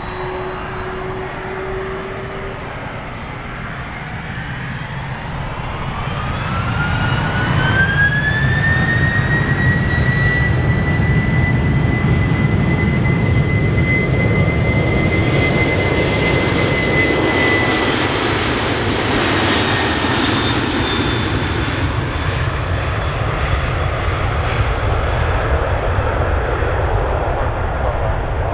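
Boeing 767-300F freighter's twin GE CF6-80C2 turbofans spooling up to takeoff thrust for the takeoff roll. A whine climbs in pitch about six seconds in and levels off into a steady high whine over a loud engine rumble. The whine fades around twenty seconds in while the rumble carries on.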